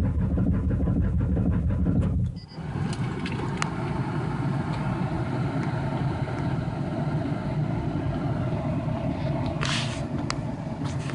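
1993 Ford Taurus SHO's Yamaha-built V6 cranking on the starter with a fast, even chug and not firing, stopping abruptly about two seconds in: a crank-no-start. Afterwards a steadier, quieter hum with a few light clicks.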